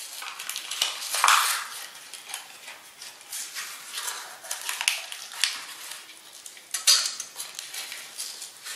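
A utensil clinking and scraping against a mixing bowl, with irregular light knocks, as raisins are stirred into an egg custard mix.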